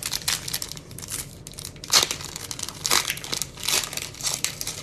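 Foil wrapper of a 2021 Bowman Platinum baseball card pack crinkling and tearing as it is opened and the cards are pulled out, in a run of uneven crackles, loudest about two and three seconds in.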